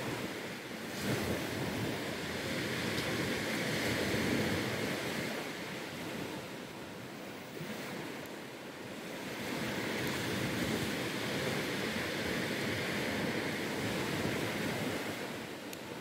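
Ocean surf washing onto a sandy beach: a rushing noise that builds, eases off about halfway through, then builds again.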